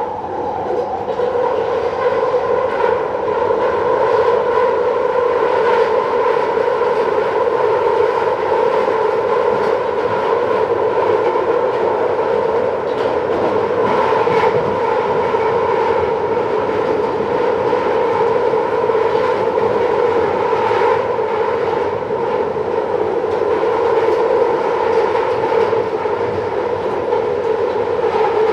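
London Underground Central line train screeching, a loud sustained high-pitched squeal with several pitches held together over the rumble of the train, with faint rhythmic rail clicks.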